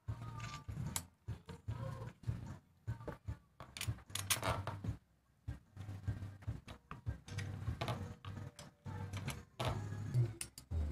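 Irregular metallic clicks, clinks and knocks as a Mollar 12-inch mini chainsaw attachment's bar, chain and handle bolts are handled and tightened by hand.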